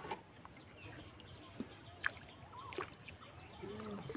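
Quiet ambience over flood water with faint scattered bird chirps, and a few small drips and taps as a fishing net is lifted out of the water beside a wooden canoe.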